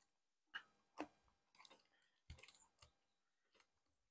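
Near silence broken by about five faint metal clicks and taps: a C-clamp and an old wrench being set over the piston of a C6 Corvette brake caliper, ready to press the piston back in.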